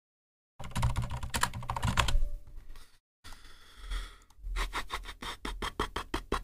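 Typing on a computer keyboard: quick runs of key clicks, with a short pause about halfway through, then a steady patter of keystrokes.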